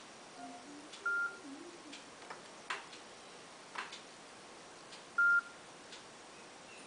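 Nokia 5800 XpressMusic phone giving two short single-pitch beeps about four seconds apart, the lock and unlock signal as a hand covers and uncovers its proximity sensor. A few faint clicks between them.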